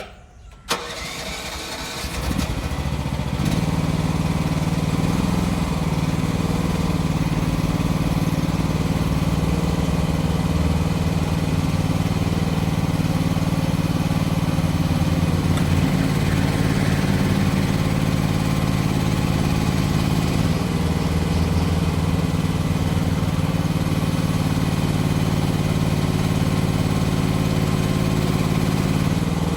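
A small gasoline engine starts under a second in, picks up over the next couple of seconds, then runs steadily.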